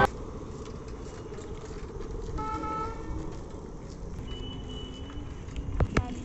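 Street traffic noise with a short vehicle horn toot about two and a half seconds in, and a couple of sharp clicks near the end.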